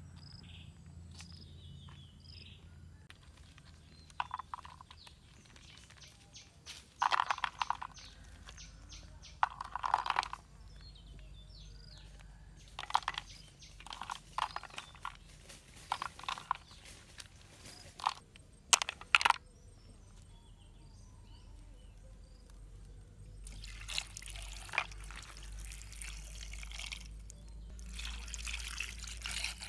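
Water splashing and pouring in a series of short bursts, then a steadier run of water near the end.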